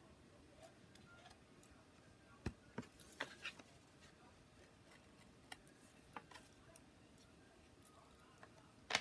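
Faint, scattered clicks and taps of small things being handled on a craft table: a few about two and a half to three and a half seconds in, two more later, and a sharper click at the very end.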